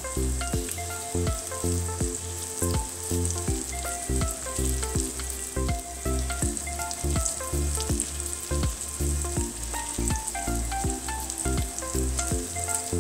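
Breaded chicken breast fillets sizzling gently in shallow oil in a non-stick pan on low heat, a steady hiss. Background music with a steady beat plays over it.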